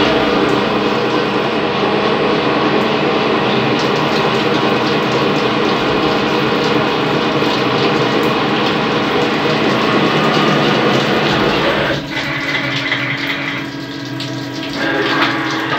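CNC lathe running with flood coolant pouring and splashing over a spinning metal bar as a turret tool cuts it: a loud, steady mix of machine noise and splashing liquid. About twelve seconds in it gets quieter, leaving a steady hum.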